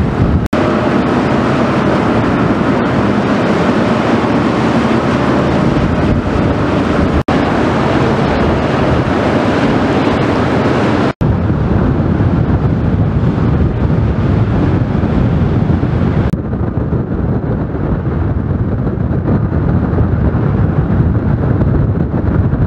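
Wind buffeting the microphone over a steady low rumble, broken by three brief dropouts at cuts about half a second, seven seconds and eleven seconds in; the sound turns duller about sixteen seconds in.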